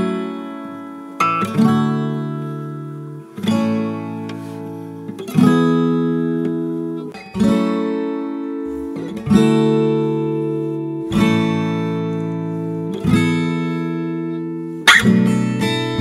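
Background music: acoustic guitar strumming a chord about every two seconds and letting each one ring and fade, with quicker, busier playing about a second before the end.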